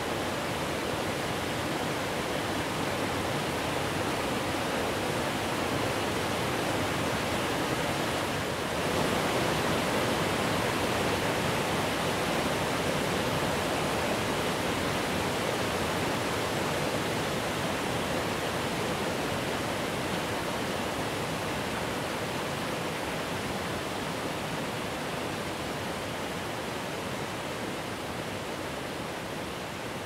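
Steady rushing of a large waterfall, Kurokuma Falls with its 85 m drop, as an even hiss with no separate events. It steps up slightly about nine seconds in.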